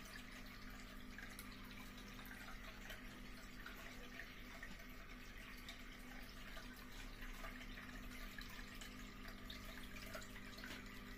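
Water trickling and splashing down the tiers of a small handmade cement tabletop fountain into its basin, a faint steady run of small drips and splashes, with a low steady hum underneath.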